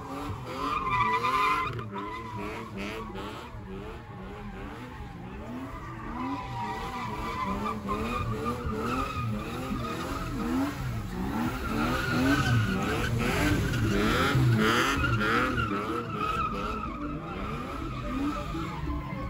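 BMW E30 doing a burnout: the rear tyres squeal steadily against the pavement while the engine revs up and down over and over, a couple of times a second.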